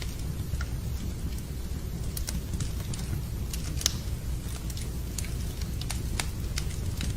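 Wood fire crackling in a fireplace: scattered sharp pops, a louder one about four seconds in, over a steady low hiss of rain.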